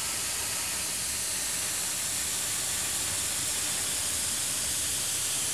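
Badger airbrush spraying paint: a steady, unbroken hiss of air from the nozzle.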